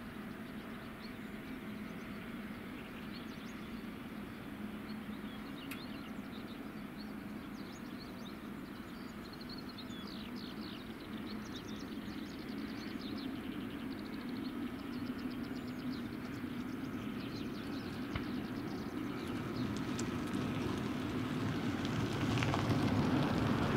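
Twin-engine jet airliner taking off at a distance: a steady rumble of its engines at takeoff power that grows louder toward the end. Birds chirp faintly in the middle.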